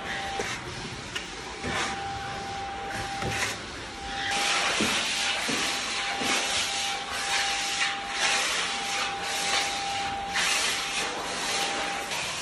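Steel filler trowel scraping wood-filler paste across sanded parquet in repeated sweeping strokes, louder from about four seconds in; before that, quieter sounds of the filler binder being poured onto sanding dust. A steady high tone runs underneath and stops near the end.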